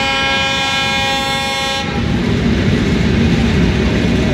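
A train horn gives one long, steady blast that cuts off about two seconds in. The rumble of the train running on the track follows.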